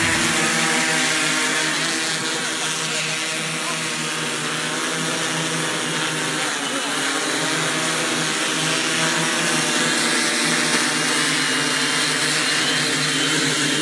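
Large multirotor spraying drone hovering, its propellers giving a steady multi-toned hum that dips briefly in pitch about six and a half seconds in.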